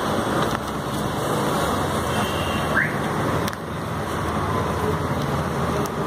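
Steady roadside din of street traffic, with a couple of sharp clicks and a brief rising chirp about three seconds in.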